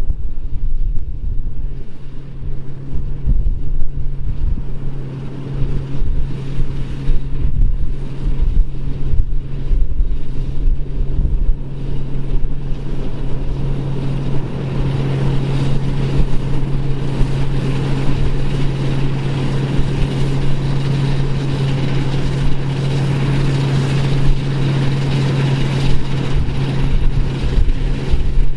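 Engine of a vintage farm machine running steadily at working speed, with wind buffeting the microphone. A busier, higher mechanical noise builds from about halfway through.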